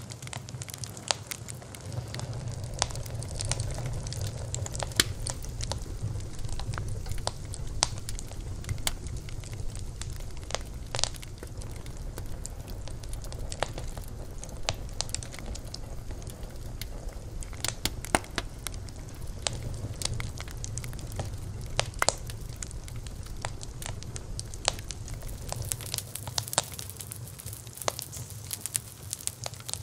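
Wood bonfire crackling, with frequent irregular sharp pops and snaps over a steady low rumble. The low rumble drops away near the end while the crackle carries on.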